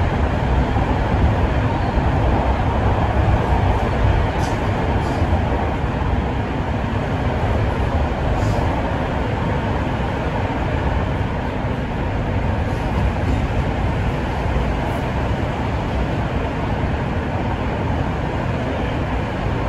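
A Toronto subway train (a Toronto Rocket) running at speed, heard from inside the car: a steady, loud, low rumble of wheels on rail and running gear. It is a little louder in the first few seconds, with a few faint clicks.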